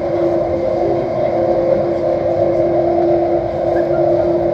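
Delhi Metro Airport Express Line train running at speed, heard from inside the carriage: a steady rumble with one steady tone over it.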